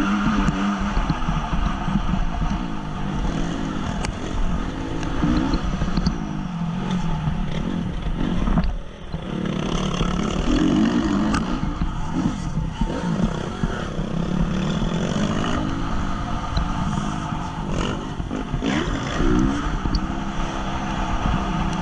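Honda CRF 250's single-cylinder four-stroke engine under race throttle, revving up and falling back again and again, with a brief drop as the throttle closes about nine seconds in.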